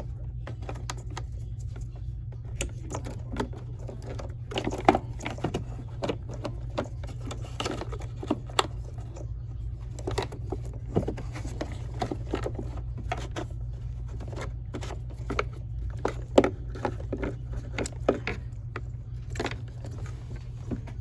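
Irregular clicks, taps and light knocks of hands unplugging the wiring-harness connectors on an EGO LM2100SP battery mower, over a steady low hum.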